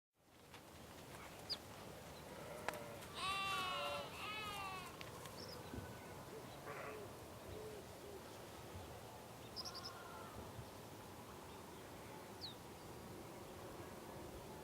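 Farm ambience fading in: a sheep bleats twice in quick succession a few seconds in, with a few short scattered bird chirps over a faint steady background.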